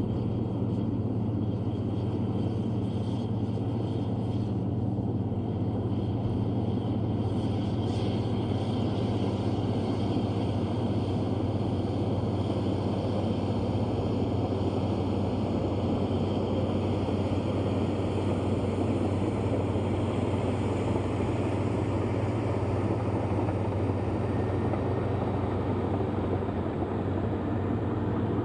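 Komatsu D155A bulldozer's diesel engine running steadily at an even pitch.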